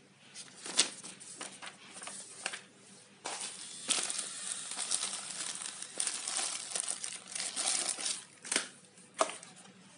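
Packaging being handled and crinkled, an irregular rustling with sharp clicks, the loudest about a second in and twice near the end.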